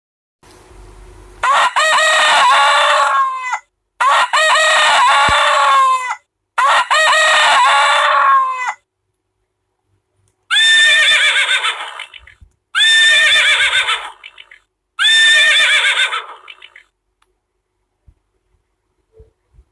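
Recorded chicken sounds, rooster crowing and hen clucking, played from a sound board book's small speaker. One clip of about two seconds plays three times, then after a short pause a different clip plays three times.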